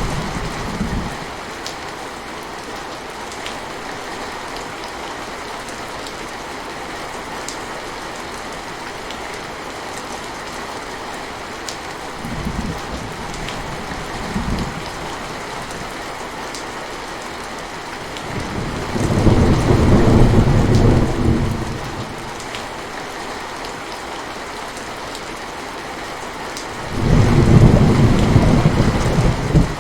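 Steady rain falling, with low rumbles of thunder: one fading out at the start, two short ones midway, a louder one about two-thirds of the way in, and another starting near the end.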